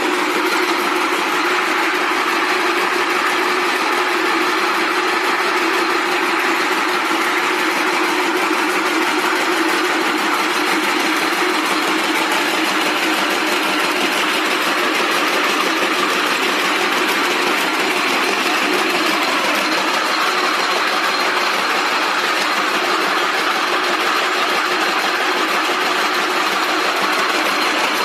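Rope braiding machines running at speed, their bobbin carriers travelling round the track: a loud, steady mechanical din with a faint high whine running through it.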